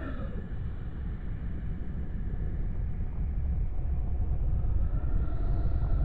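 Sci-fi flying-saucer sound effect: a deep, steady rumble that slowly grows louder, with a faint high hum joining near the end.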